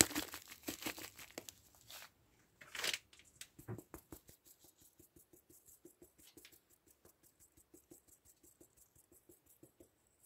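Handheld fine mesh sieve shaken over a plate of doughnuts, dusting them with powdered sugar: a dense rustle at first, then a steady run of light taps, about four a second, that stops near the end.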